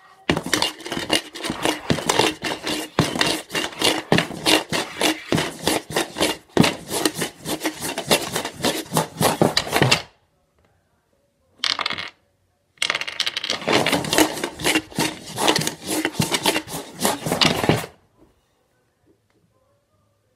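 Five dice rattling and clicking inside a plastic cup swirled across a hard tabletop to stack them. A fast run of clicks lasts about ten seconds. After a brief burst it starts again for about five seconds and stops shortly before the end.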